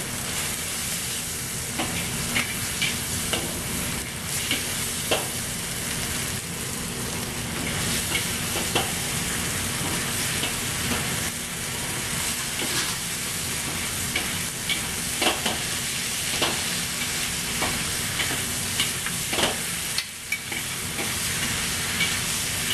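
Snow peas and beef frying in a hot wok with a steady sizzle, while a metal wok spatula and ladle scrape and clink against the pan in quick, irregular strokes as the stir-fry is tossed.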